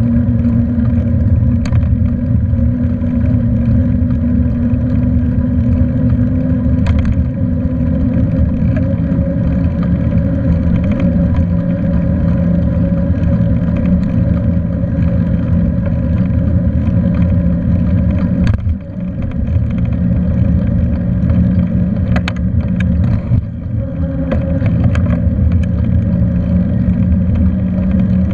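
Bicycle ride heard through a handlebar-mounted camera: a loud, steady low drone of wind and rolling noise with a faint hum in it, and a few short clicks in the last third.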